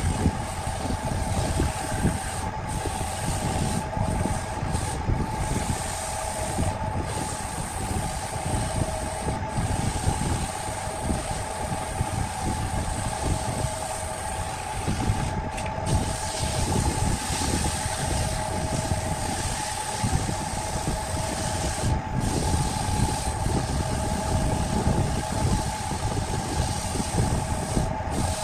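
A homemade belt-driven wood lathe running steadily, its electric motor humming, while sandpaper held by hand hisses against the spinning wooden dish. The hiss breaks off briefly now and then.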